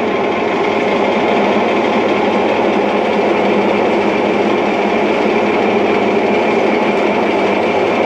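A machine running with a loud, steady mechanical whir that swells in just before and then holds even.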